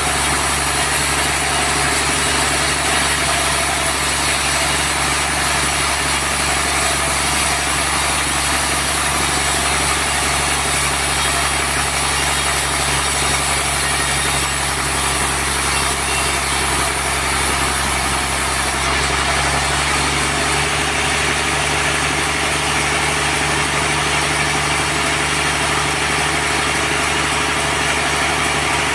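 Sawmill machinery running steadily: a constant engine drone under a dense saw noise, cutting a large trembesi log into boards. About two-thirds of the way through, the tone shifts slightly.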